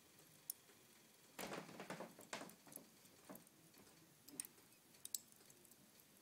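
Faint crackling and sharp pops from wood burning in a wood stove firebox. About a second and a half in, a short cluster of rushing crackles comes as the smouldering logs flare up into flame.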